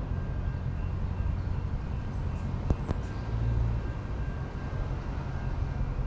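Steady low rumble of distant city traffic, swelling briefly a little past the middle, with two sharp clicks just before halfway.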